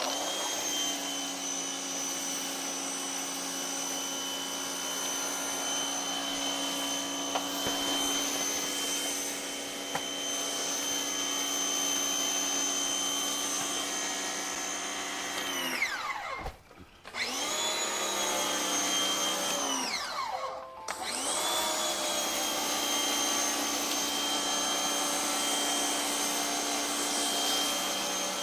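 Electric pressure washer running steadily while spraying foam. Its motor cuts out and winds down three times: about 16 seconds in, about 20 seconds in, and at the end. After the first two stops it starts again within a second or so.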